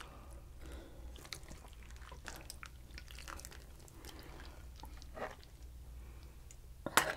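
Serving from a stainless steel pot of stew into a wooden bowl: faint scattered clicks and taps of the ladle and chopsticks with soft wet drips of broth, and a sharper knock near the end.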